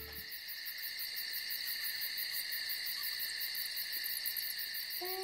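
Steady insect chorus: several high, continuous chirring notes with a fast, even pulse on top.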